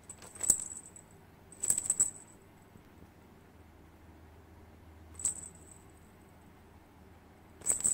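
Small metal jingle bells on a pom-pom cat teaser wand jingling in four short bursts as the wand is shaken while a kitten plays with it.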